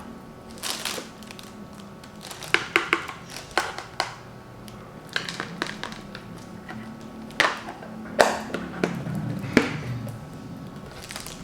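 Irregular sharp clicks and knocks of hard plastic storage containers being handled, over faint background music.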